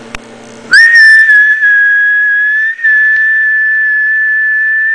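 A person whistling one long, steady high note, starting about a second in, with a short break for breath near the middle.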